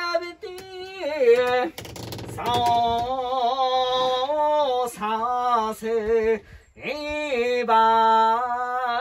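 A boatman singing alone, without accompaniment, in a tenor voice, holding long notes with a wavering pitch in phrases separated by short pauses. A brief clatter comes about two seconds in.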